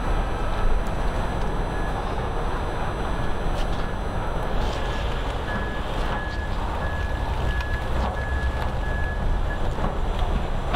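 City street traffic noise: a steady low rumble of vehicles. A high electronic beep repeats at a regular pace through most of it, then stops near the end.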